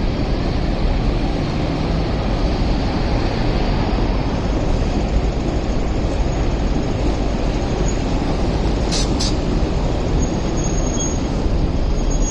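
Hong Kong double-decker tram running past close by on street rails: a steady rumble of steel wheels on the track, with some wheel squeal. Two short high ticks about nine seconds in.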